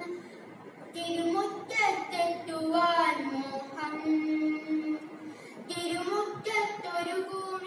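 A boy singing lines of a Malayalam poem with long, drawn-out notes and a short pause for breath near the start.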